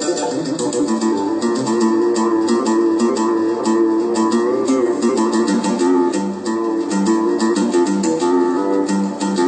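Korg Pa3X arranger keyboard playing a guitar-like plucked-string melody and chords over a rhythm with fast, even ticks.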